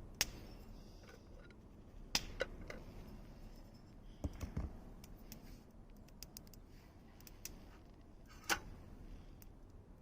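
Campfire crackling: a handful of sharp pops from the burning wood, the loudest about 8.5 seconds in, among faint, irregular ticks.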